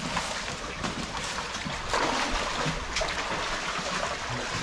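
Shallow brook water running steadily, with a few splashes and knocks from footsteps in the stream bed.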